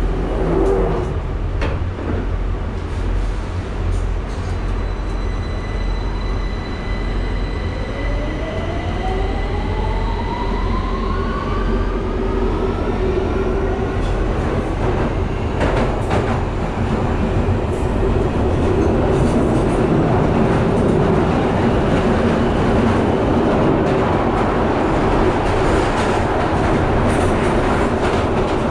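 London Underground Victoria line train heard from inside the carriage as it gathers speed: the traction motors' whine rises in pitch over several seconds. Meanwhile the rumble of wheels on rail grows steadily louder, with a few sharp knocks from the track.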